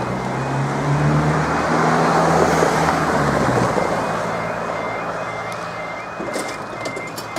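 A road vehicle passes close over the level crossing, its engine hum and tyre noise swelling and then fading away by about four seconds in. Underneath, the level crossing's quiet two-tone alarm alternates steadily, about two tone changes a second, warning that a train is approaching.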